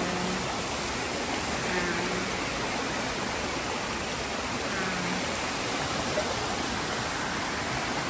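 Small rocky waterfall splashing and rushing steadily, a constant hiss of falling water. Faint voices come through twice in the background.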